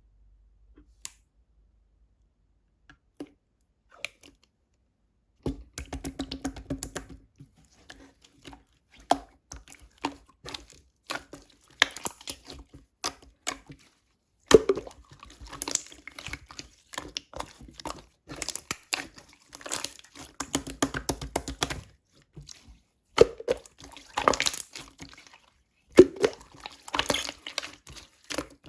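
Clear slime being squished and pressed by hand: dense runs of sticky, wet clicks and small pops starting about five seconds in, with a few short pauses.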